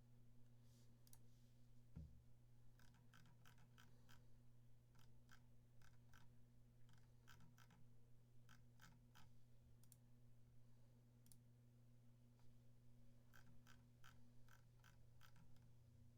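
Near silence: a faint low steady hum with scattered faint clicks, in quick runs through most of the stretch.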